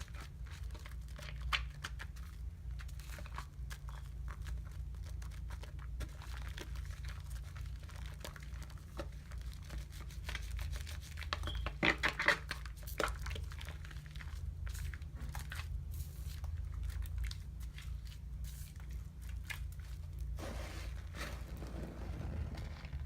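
Soap lather being worked into a mesh loofah: dense, irregular crackling and squishing, louder for a moment about halfway through, over a steady low hum.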